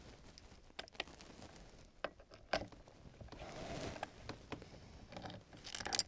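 Several light clicks and taps, spread irregularly, from screws and a small hand tool being handled against the lock hardware as a door lock is fitted.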